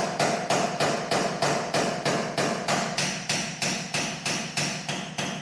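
Hammer blows on a dented steel body panel, a steady run of about four strikes a second with the sheet metal ringing between them: the creases in the dent being hammered out while a porta power ram pushes from behind. The hammering stops abruptly at the end.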